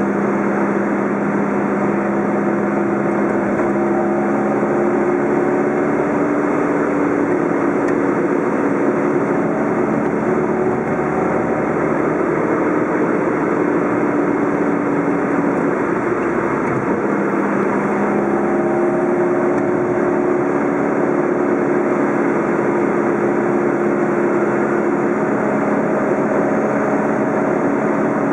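Car engine and tyre noise heard from inside the cabin while driving at steady speed. The engine's drone holds steady, with its pitch shifting up and down a few times.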